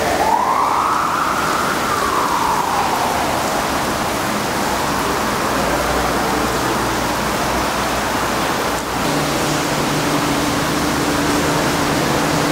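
Steady, loud rushing noise, with a whine that rises and then falls in pitch over the first few seconds. The sound dips briefly about nine seconds in.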